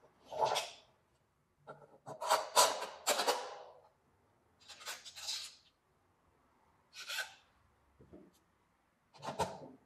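Metal hardware being fitted by hand: a pivot bolt, spacer tube and aluminium bar rubbing and scraping as they are pushed and slid into place, in five short bursts with quiet gaps between.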